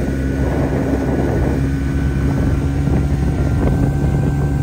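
Motorboat engine running steadily at speed, with the rush of wind and water over it.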